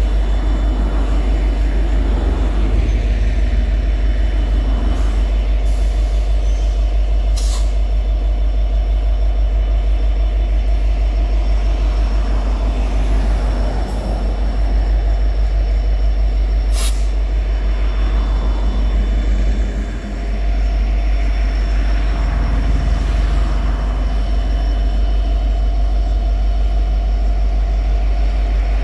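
EMD 16-710-G3 turbocharged two-stroke V16 diesel of an SD70-series locomotive running steadily, a deep low rumble. Two brief sharp clicks sound about 7 and 17 seconds in.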